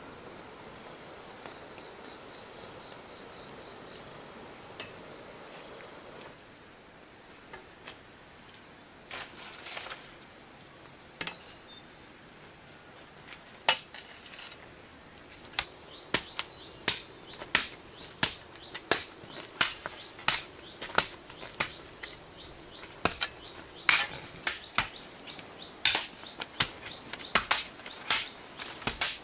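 Insects chirring steadily at a high pitch, joined about halfway through by a run of sharp chopping strikes, roughly one to two a second, that keeps on to the end.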